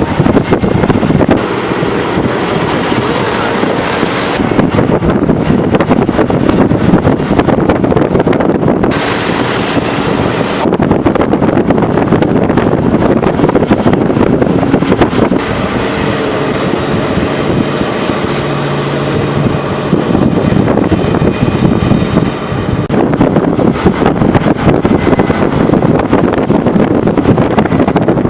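Scania S730 truck's 16-litre V8 engine running as the truck drives hauling a heavy load, with tyre and wind noise. The sound changes abruptly several times.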